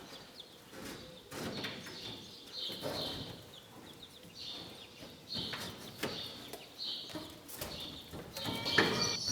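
Wooden knocks and scrapes as a tree limb is worked down into the gap behind barn wall paneling, with short high-pitched calls repeating over them.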